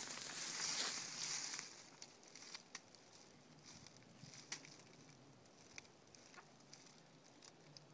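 Rustling and crunching in dry leaf litter for the first second and a half, then quieter handling noise with scattered faint clicks as a metal soil corer is unscrewed from its auger.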